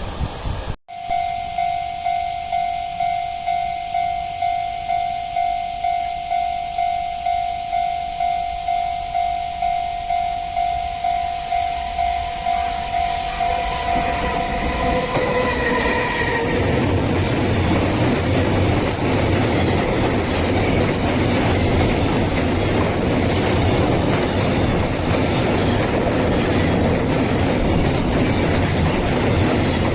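Japanese level crossing warning bell ringing in a steady repeating ding, about one and a half strokes a second. About 15 seconds in it is drowned out by the loud rushing and rumble of a train passing over the crossing, its wheels clattering over the rails.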